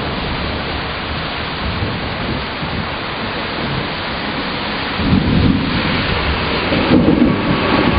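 Heavy thunderstorm rain falling steadily, with a low rumble of thunder swelling about five seconds in and again near the end.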